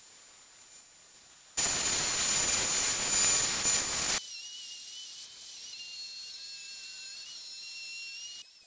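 Oscillating spindle sander running loud for about two and a half seconds as a plywood template is sanded against its sleeve, starting and stopping abruptly. It is followed by a quieter, wavering high whine.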